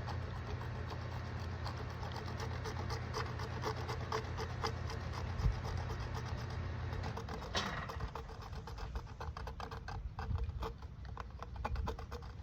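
Hacksaw cutting through plastic PVC irrigation pipe: rapid, even back-and-forth strokes.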